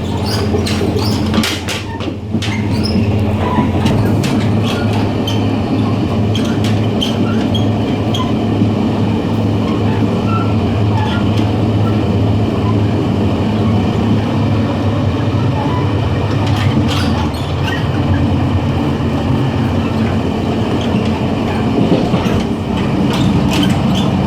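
Running noise inside the gangway connection of a DR3000-series diesel multiple unit: a steady low drone and the rumble of wheels on rail, with scattered clanks and clicks from the gangway and rail joints, bunched near the start and twice later on.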